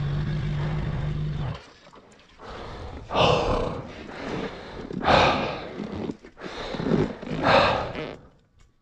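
Suzuki Bandit 1200's inline-four engine running steadily at idle, then stopping about a second and a half in on a hill it has lost momentum on. After it, three loud, heavy straining breaths or grunts a couple of seconds apart, with quieter ones between.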